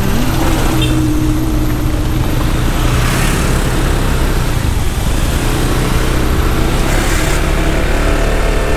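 Steady engine and road noise from a moving road vehicle.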